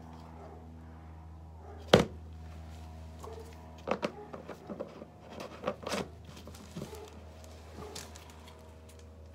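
Plastic clicks and knocks from a 3M PPS spray-gun cup being put together by hand: one sharp snap about two seconds in, then a run of smaller clicks and taps over the next few seconds. A steady low hum runs underneath.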